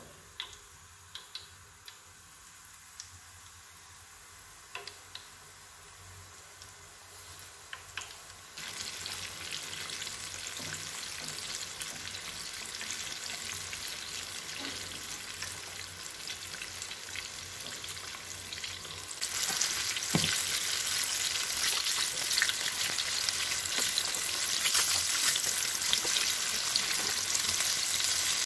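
Flour-battered chicken pieces deep-frying in a pot of hot oil: a crackling sizzle. It is faint with scattered pops at first, then gets louder about eight seconds in and louder again about nineteen seconds in.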